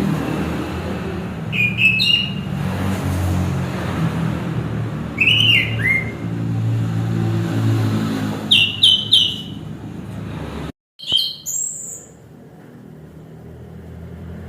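Chestnut-capped thrush singing short, separated whistled phrases with quick pitch slides, including a rapid run of three notes about nine seconds in and higher notes near the end. A steady low rumble runs beneath.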